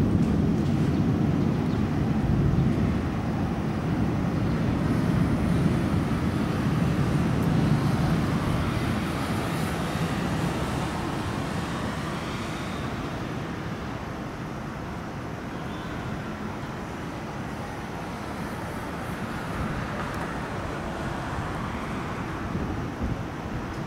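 Distant rolling thunder: a low rumble, loudest at the start, dying away over about twelve seconds.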